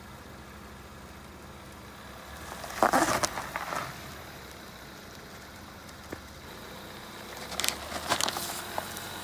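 A car engine running low and steady, with two short bursts of noise: one about three seconds in and a cluster near the end.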